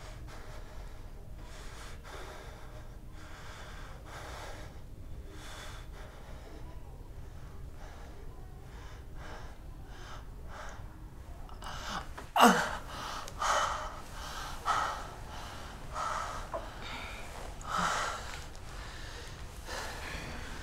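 A man's heavy breathing: faint, slow breaths at first, then from about twelve seconds in louder gasping breaths about once a second, the first of them the loudest.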